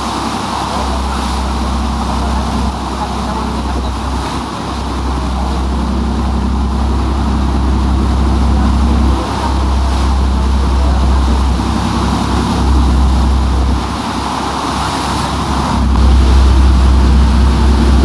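Yacht's motor running with a steady hum, and a deep rumble that cuts out and returns several times.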